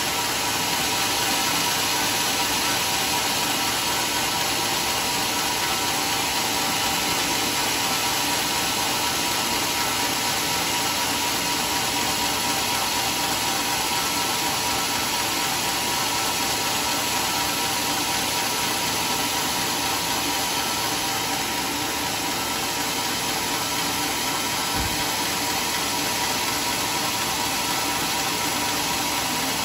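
Band sawmill running steadily between cuts, a constant machine noise with a fixed whine. The teak log on its carriage stays still rather than being fed through the blade.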